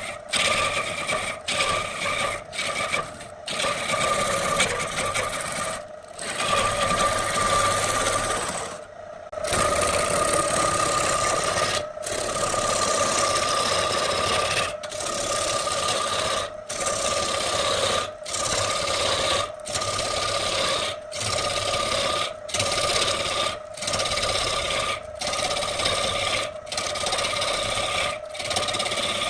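A long-handled turning tool cutting a large redwood blank spinning on a wood lathe: a continuous rasping cut over a steady whine. It is broken by short gaps about every second and a half, with a longer break about nine seconds in.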